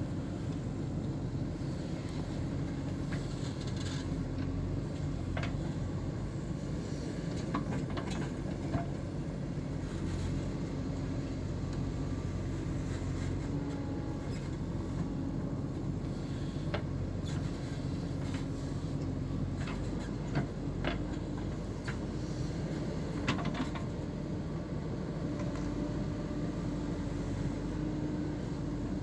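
JCB 3DX backhoe loader's diesel engine running steadily, with a few short sharp knocks scattered through.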